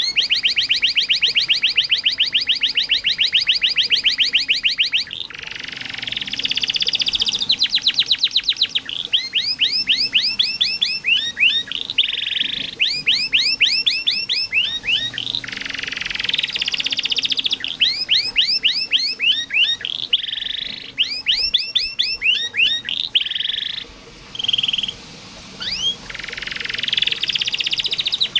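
Domestic canary singing a long song of fast trills, each phrase a rapid run of the same repeated note, some as rising sweeps, with short pauses between phrases.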